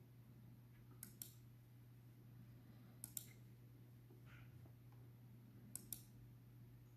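Near silence with a low steady hum, broken by three pairs of short sharp clicks, about one, three and nearly six seconds in.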